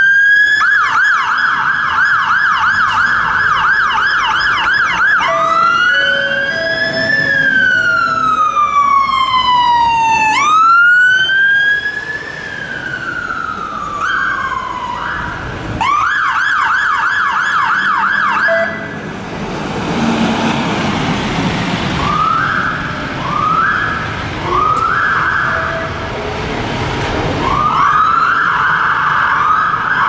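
Fire engines' electronic sirens sounding as they turn out. The tone switches from a fast yelp to two long rising-and-falling wails about five to fifteen seconds in, then back to yelp, with short whoops near the end. Engine noise fills a gap in the siren about twenty seconds in.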